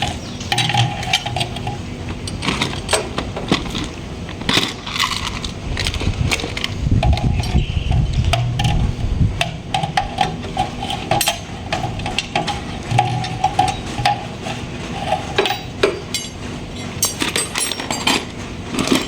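Metal tools clinking and knocking against metal parts during a car repair, a long run of sharp irregular clicks and clanks, with an intermittent steady whirring tone and a short low rumble about seven seconds in.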